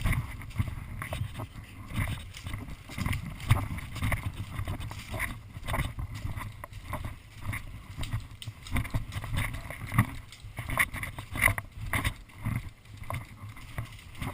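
Low rumbling movement and wind noise on the microphone, with irregular light clicks and knocks through it.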